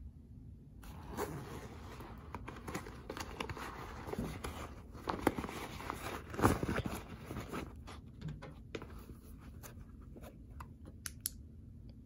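Metal zipper on a suede handbag being pulled open, its teeth rasping in uneven runs over several seconds. A few light clicks follow near the end as the pull and bag are handled.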